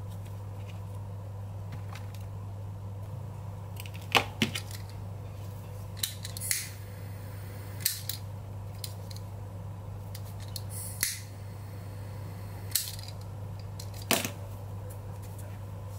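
Disposable lighter being clicked to light, about eight sharp clicks at uneven gaps, over a steady low hum. It is held to the freshly knotted thread ends on the stitched leather, as is done to melt them so the knots hold.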